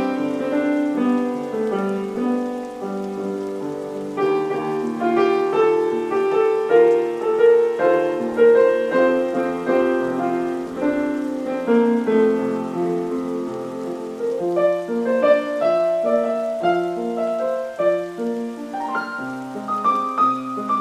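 Solo piano improvisation: a steady stream of overlapping notes and chords, mostly in the middle range, moving into higher notes near the end.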